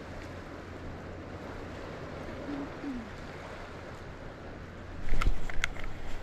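Steady wash of water and wind at the shore. About five seconds in, a louder low rumble sets in, with a few sharp clicks.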